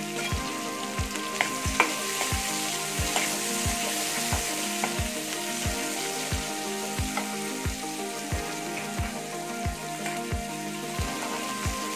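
Sliced onions and bay leaves sizzling in hot oil in a frying pan, with a metal ladle now and then scraping and stirring them. A low thump repeats evenly about one and a half times a second underneath.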